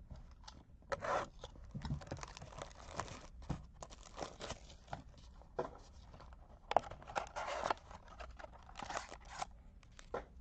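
Plastic trading-card pack wrapping being torn open and crinkled by hand, in irregular bursts of rustling and tearing.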